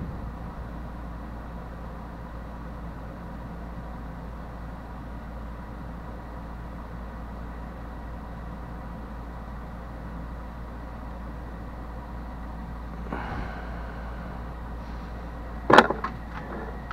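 Steady low hum with faint hiss, a brief rustle, then one sharp click near the end followed by a couple of lighter ticks, as a hand works the flasher control box and its wires.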